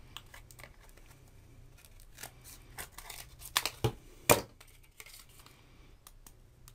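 Product packaging being cut open and handled: scattered snips, clicks and rustles, with a few louder sharp snaps about halfway through.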